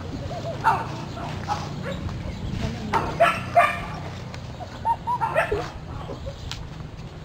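A dog barking in short yips, several times at irregular intervals.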